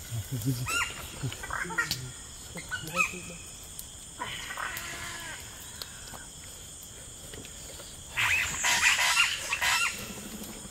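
A person making short animal-like grunts and cries while tearing at roasted goat meat with hands and teeth. About eight seconds in, a louder, rough, noisy sound lasts nearly two seconds.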